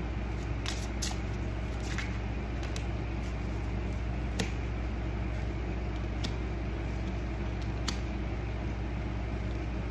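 Steady low room hum and hiss, with a handful of faint, short clicks scattered through it.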